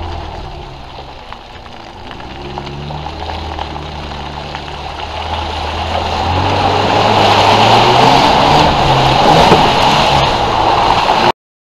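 Off-road 4x4 engine under load, its pitch rising about six seconds in, with a loud rushing noise that builds over it. The sound cuts off suddenly near the end.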